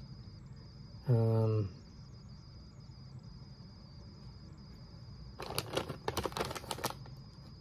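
A man gives a short hum about a second in. Later a crinkly foil potato chip bag crackles for about a second and a half as it is handled and turned. A faint steady high-pitched tone sits underneath.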